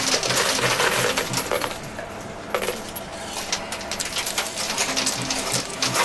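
Quarters dropping into a coin pusher machine and clinking against the piled coins: a rapid patter of small metallic clicks that thins out briefly about two seconds in.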